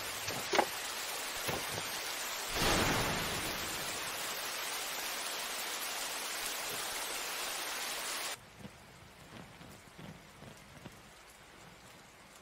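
Steady hiss of rain, swelling about two and a half seconds in, then cutting off abruptly near the end and leaving only a few faint ticks.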